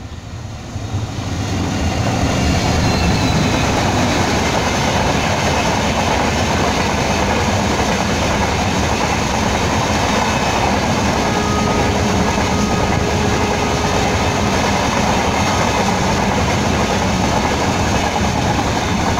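Express passenger train hauled by an EMD WDP-4 diesel locomotive running through at speed. The noise builds over the first two seconds as the locomotive arrives, then holds as a loud, steady rush of passenger coaches and wheels on the track.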